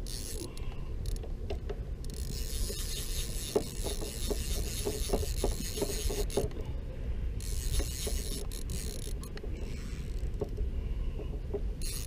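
A fishing reel's clicker ratcheting in irregular runs of clicks while a hooked fish is played on a bent rod.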